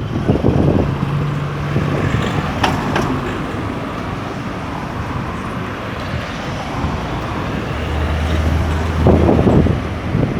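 Street traffic: car and bus engines running and passing over a steady rumble of road noise.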